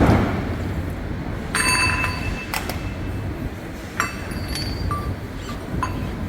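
Steel parts of a frame-straightening bench and jig clinking against each other, four or five sharp metallic strikes that ring briefly, over a steady low workshop rumble.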